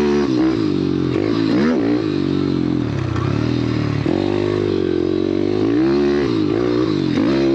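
YCF Bigy pit bike's single-cylinder four-stroke engine being ridden hard through a series of bends. The revs climb on the throttle and drop back several times as the rider works the turns.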